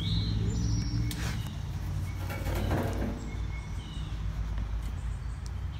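Outdoor background of a steady low rumble with faint bird calls, and a light knock about a second in as a painted canvas is handled on a wooden easel.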